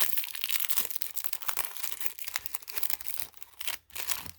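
The foil wrapper of a Magic: The Gathering Jumpstart booster pack crinkling and tearing as it is opened by hand, a dense crackle that dies away near the end.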